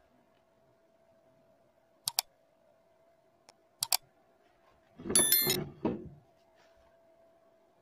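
Sound effects of a subscribe-button animation: two sharp mouse-click double clicks about two seconds apart, then about five seconds in a bright ringing notification-bell chime, the loudest sound. A faint steady hum runs underneath.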